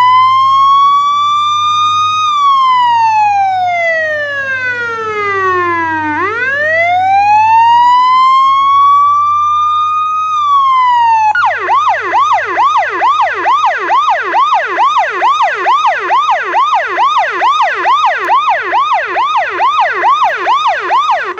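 Federal Signal PA-15A electronic siren sounding a slow wail that rises and falls over about four seconds each way. About halfway through it switches to a fast yelp of about four sweeps a second, which cuts off abruptly near the end.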